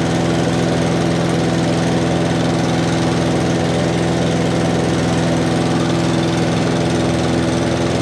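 Mountfield rotary lawnmower's petrol engine running steadily at constant speed, having just fired up when spun over with a high-speed drill in place of its broken pull cord; it runs smoothly.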